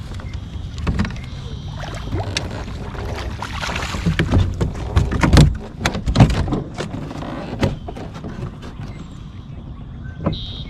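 Knocks and clunks on a plastic fishing kayak's hull as the angler moves and handles gear, over a steady low rumble. The knocks come irregularly and are loudest a little past halfway through, with two hard ones close together.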